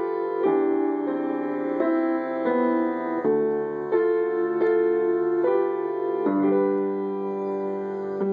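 Solo piano playing a slow melody, one note struck about every half second over a sustained lower part, with a new low chord about six seconds in that is held to the end.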